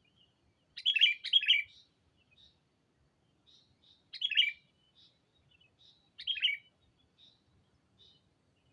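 Sooty-headed bulbul, a decoy bird, calling to lure rival bulbuls: three loud, short bubbly phrases a couple of seconds apart, the first given twice in quick succession, with faint short chirps between them.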